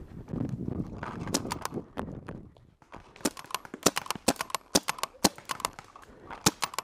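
Paintball markers firing in the woods: many sharp, irregular cracks, several a second, mostly from about three seconds in. Before that, rustling steps through dry leaf litter.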